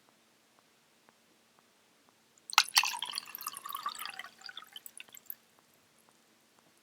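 Recorded Foley sound effect with a watery, dripping character: faint ticks about twice a second, then about two and a half seconds in a sudden dense splash-like crackle that thins out over some three seconds.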